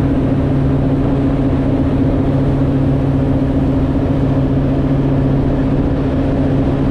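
Ski boat's engine running at a steady pitch while towing a water skier, a constant low drone under the rush of water and wind at the stern.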